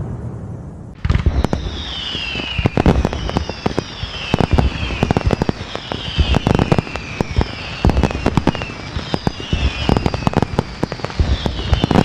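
Fireworks going off, starting about a second in: a dense run of sharp bangs and crackles, with a falling whistle sounding again and again, roughly every one and a half seconds.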